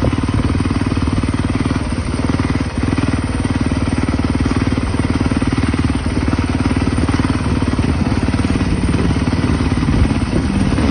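Motorcycle engine running steadily at low speed, its exhaust pulsing evenly.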